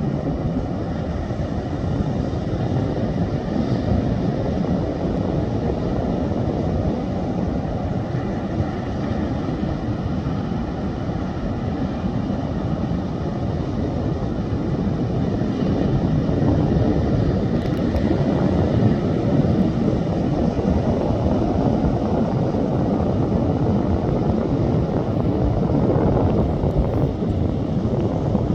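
Ocean surf on a sandy beach: a steady low rumble of breaking waves, getting a little louder over the second half.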